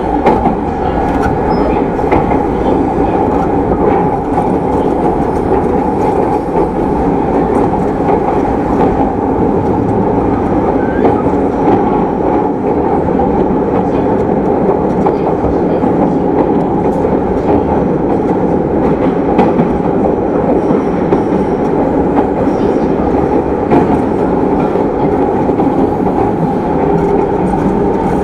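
Running noise inside a JR East E217 series electric train's motor car (equipment-renewed MoHa E216): the rumble of wheels on rail and the traction motors at a steady speed, with no braking or acceleration changes.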